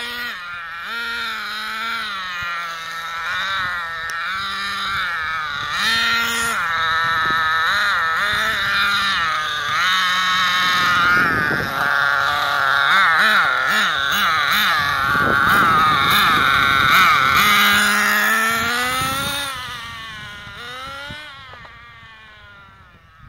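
Thunder Tiger Tomahawk 1/10 RC car's small nitro engine revving up and down again and again as it is driven, a high, buzzing whine that keeps changing pitch. It is loudest in the middle and fades away near the end.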